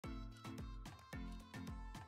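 Faint background music with a steady beat, a low note sounding about every half second.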